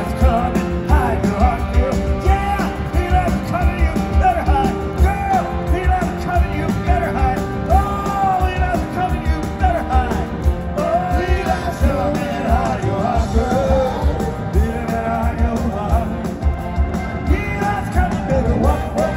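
Live rock band playing: a lead singer over a steady drum beat, electric guitars and Hammond organ.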